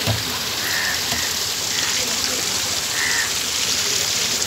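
Steady rush and splash of a small rocky stream, water pouring from a spout onto the stones.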